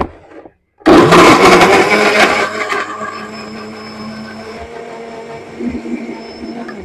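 Countertop blender switched on about a second in, its motor grinding an onion and spice paste: loud and rough at first while the pieces are chopped, then smoother and steadier with a thin high whine as the paste turns fine, stopping at the end.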